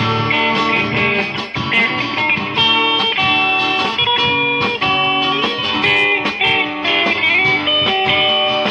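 Instrumental break of a live band: a guitar plays a melodic lead, with bent, sliding notes, over the band's accompaniment.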